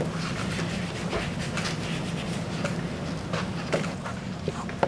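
Quiet classroom room tone with a steady low hum. Near the end come a few short squeaks of a marker writing on a whiteboard.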